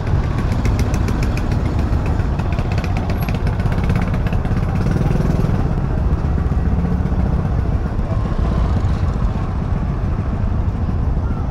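Busy market street ambience with motorbike engines running close by, and a fast ticking during the first few seconds.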